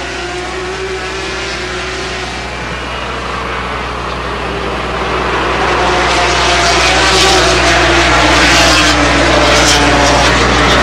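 500cc two-stroke Grand Prix racing motorcycles running at high revs on track, the engine note getting louder about halfway through as the bikes come closer. A steady low hum sits underneath.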